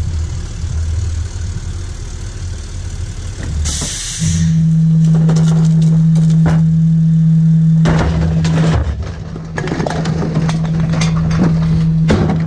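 Rear-loader garbage truck's diesel engine idling, then a short hiss of air about four seconds in. The engine then rises to a loud, steady drone as recyclables clatter into the hopper: aluminium cans, plastic bottles and cardboard tipped from a bin. A hard bang comes near the end.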